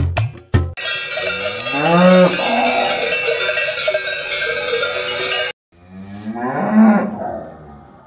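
Many cowbells ringing together from a grazing herd of cattle, with a cow mooing once about two seconds in. The bells cut off suddenly, and a second cow moos once, fading out near the end.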